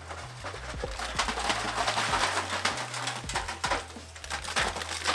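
Old asphalt shingles being torn off a roof: irregular scraping and clattering with many sharp knocks as the pieces come loose and fall, over a steady low rumble.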